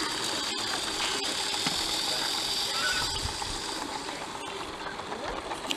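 Roundhouse Millie 32 mm gauge live-steam locomotive running with a steady steam hiss, which fades after about four seconds.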